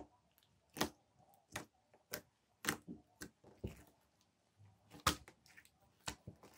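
Thick purple slime studded with small beads, kneaded, poked and folded by hand, giving irregular sharp wet pops and clicks, about eight of them, roughly every half second to second.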